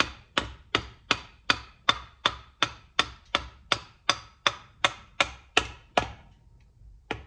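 Steady hammer taps, about three a second, on a long screwdriver used as a drift to drive the wrist pin out of a piston in a Subaru boxer engine; the pin is moving out. The taps stop about a second before the end.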